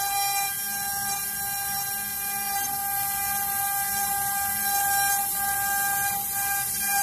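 CNC wood router's spindle running with a steady high whine as its bit carves a relief into a wooden panel.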